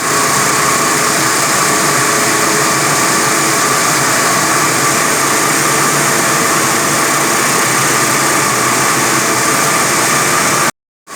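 45 kW diamond wire saw running steadily while cutting reinforced concrete: a constant loud machine noise with a steady whine. It drops out completely for a moment near the end.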